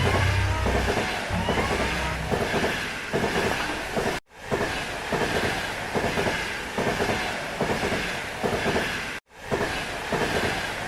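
Train running along the rails: a rhythmic clickety-clack of wheels over rail joints, with faint squealing glides above it. The sound cuts out for a moment about four seconds in and again near the end.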